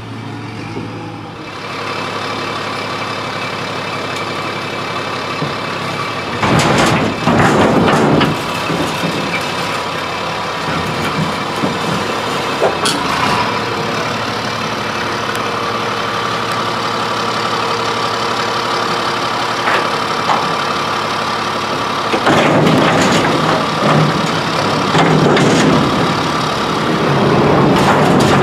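1999 Crane Carrier garbage truck running, with its engine revving up to drive the hydraulics as its arm lifts a steel dumpster overhead and dumps it. The surges come about 7 seconds in and again from about 22 seconds to the end, over a steady hydraulic whine, with a sharp metal knock about 13 seconds in.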